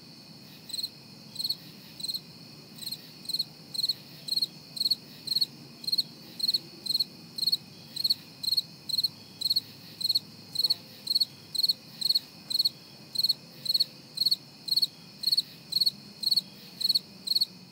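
Cricket chirping steadily, about two short, high chirps a second.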